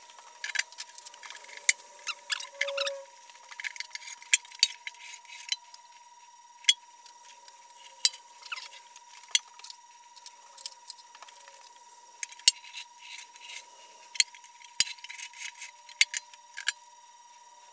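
Irregular sharp clicks, ticks and short scrapes of a screwdriver tip picking and scraping glass-hard brazing flux off an old cast-iron lathe tailstock, with the casting knocking and shifting on a metal bucket.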